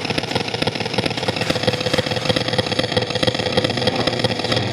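Radio receiver putting out a rough, rapidly pulsing buzz of interference with a steady whistle tone under it, instead of a station: radio-frequency interference of the kind an alarm panel gives off.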